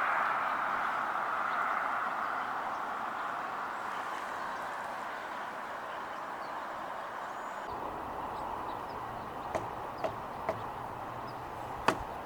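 Road noise of a passing vehicle, a steady hiss that slowly fades away, with a few light clicks near the end.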